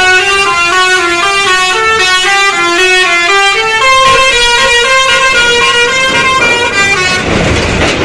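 Bus telolet horn on an NPM bus playing a quick tune of short, changing notes. From about four seconds in a longer held note sounds beneath the tune, and the horn cuts off about a second before the end.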